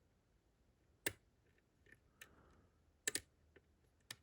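A few faint, sharp metallic clicks from a hook pick and tension wrench working inside a GEGE pExtra lock cylinder. The loudest is a close double click about three seconds in.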